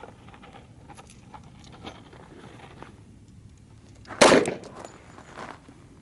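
A single .45 ACP pistol shot from a Heckler & Koch USP Tactical: one sharp, loud report about four seconds in with a short ringing tail, followed about a second later by a fainter knock. Faint clicks come before it.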